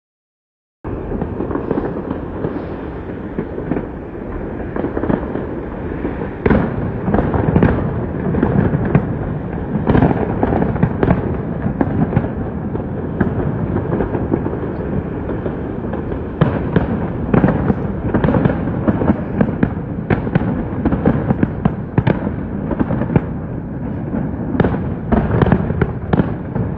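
Fireworks display heard from a distance, with shells bursting in frequent, irregular bangs over a steady rumble. The sound cuts in about a second in after a dropout.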